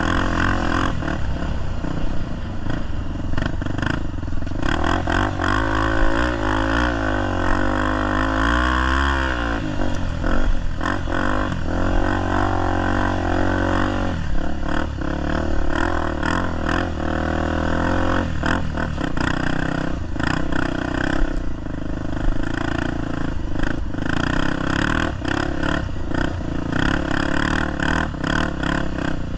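Honda XR250 Tornado's single-cylinder four-stroke engine running hard off-road, its note swinging up and down several times, with rattling clatter throughout. The bike is being ridden with no working clutch.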